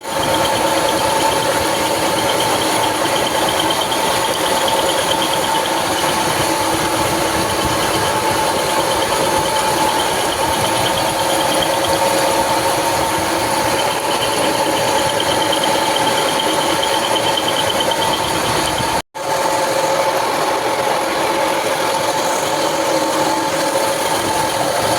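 Milling machine running and cutting steadily, a constant machine whine with several held tones over a noisy hiss. It breaks off for an instant about 19 seconds in, then carries on unchanged.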